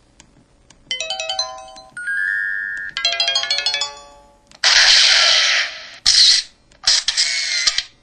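MS340 mobile phone playing a run of its built-in ringtone and effect sounds one after another: a quick electronic melody about a second in, a held chime, another fast run of notes, then three short hissy sound effects in the second half, the first of them the loudest.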